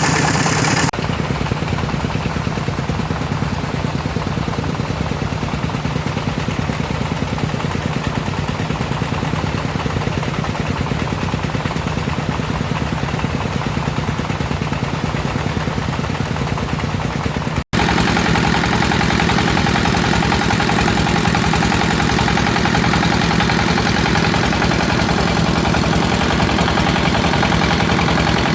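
Engine of a river water-pumping set running steadily with a continuous drone. About two-thirds of the way through it drops out for an instant and then runs on slightly louder.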